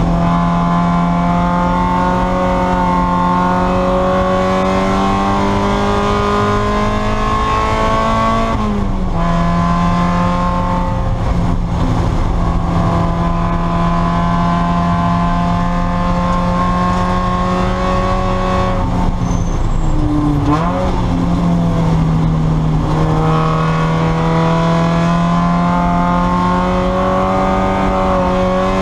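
Spec Miata race car's four-cylinder engine heard from inside the cockpit, running hard at high revs with its pitch climbing slowly under load. The pitch drops about nine seconds in, like an upshift, and dips again with quick blips around twenty seconds in, like braking and downshifting, before it climbs again.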